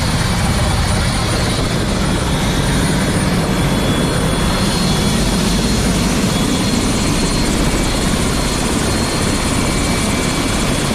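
Helicopter running, its rotor and engine making a loud, steady noise.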